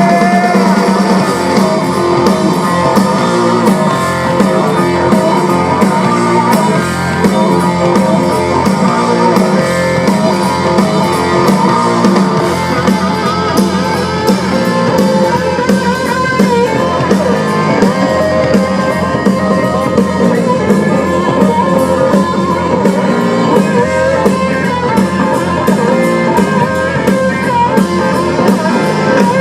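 Live blues-rock band playing an instrumental break, electric guitar to the fore over drum kit and bass.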